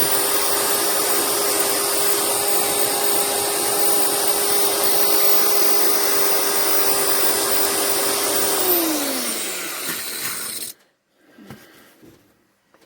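Small handheld electric power tool running at a steady high speed with a harsh hiss over its motor whine, then winding down in pitch near the end and stopping.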